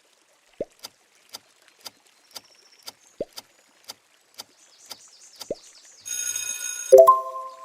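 Sound effect used as a KFC logo sound: sharp ticking about twice a second, with three short rising plops among the ticks. About six seconds in a buzzing ring starts, and it ends with a short, loud pitched ding that fades quickly.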